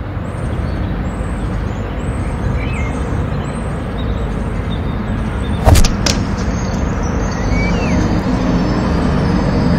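Steady outdoor urban background noise, a continuous rumble and hiss. Two sharp knocks come close together a little under six seconds in, and the first is the louder.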